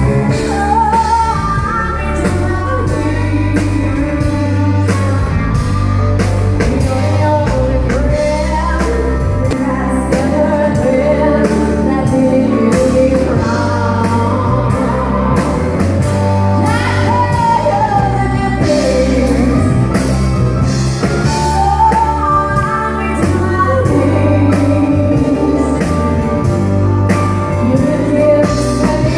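Live country band: a woman singing into a microphone over electric guitar, keyboard and a drum kit keeping a steady beat, amplified through stage speakers.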